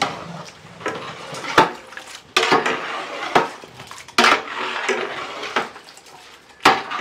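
A long wooden paddle stirring chicken pieces in a large metal biryani pot. It scrapes through the wet masala and knocks sharply against the metal side several times.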